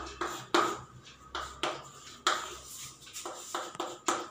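Chalk writing on a chalkboard: a quick, irregular series of sharp taps and short strokes as numbers are written.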